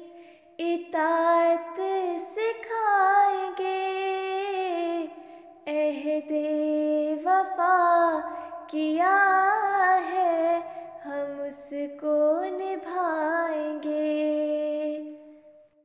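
A high solo voice singing an Urdu song in long, gliding melodic phrases with short breaks between them; the last note fades away at the end.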